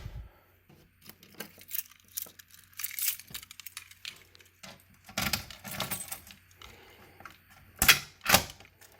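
Keys jangling and metal clicks as a manual fire alarm pull station is reset with its key, a clatter of handling about five seconds in and two sharp clacks near the end.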